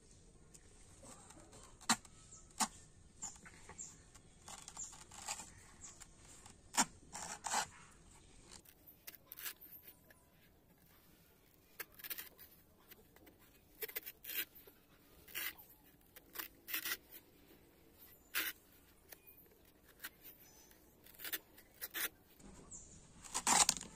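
A large knife chopping and shaving the fibrous green husk of a tender coconut: irregular sharp cuts with pauses between them. The loudest cuts come just before the end.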